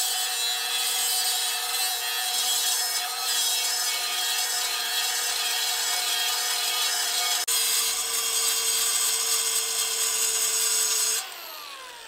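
Cordless Milwaukee angle grinder grinding the blunt edge of a steel plough disc coulter, a steady motor whine under a gritty rasping hiss as the edge is sharpened. Near the end the grinder is switched off and winds down with a falling whine.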